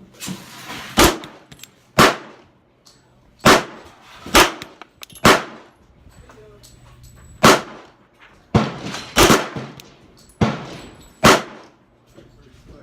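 Gunshots: about ten loud shots at uneven intervals, each with a short echo, with a few fainter shots between them.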